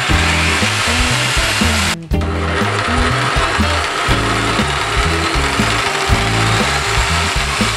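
Skil 4581 jigsaw running, its blade cutting through wood. The saw noise breaks off for a moment about two seconds in, then carries on, with background music and its bass line underneath.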